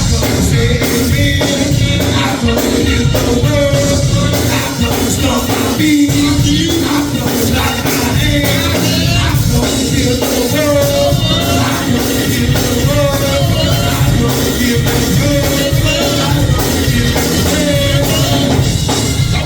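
Live church band playing gospel music with a steady beat, with singing.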